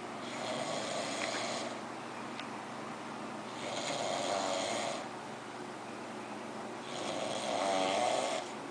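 A person snoring heavily: three loud, rasping snores about three seconds apart, each lasting about a second and a half, with quieter breathing in between.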